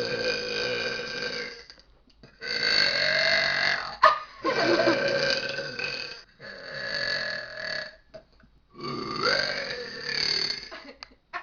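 A young woman's long, drawn-out burps, five in a row, each held for one and a half to two seconds with short pauses between. A brief sharp click comes about four seconds in.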